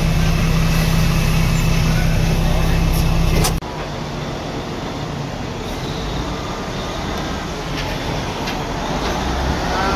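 Dump truck's diesel engine running with a steady low hum, heard from inside the cab. It cuts off abruptly about three and a half seconds in, giving way to quieter outdoor background noise.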